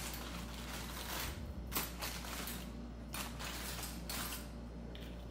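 Rustling and light scraping from hands handling small items, in several short bursts about a second apart, over a low steady hum.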